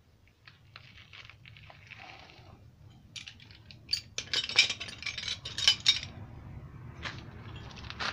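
Metal hand tools clinking and rattling as they are handled and set down on a concrete floor, with the sharpest clinks about four and six seconds in.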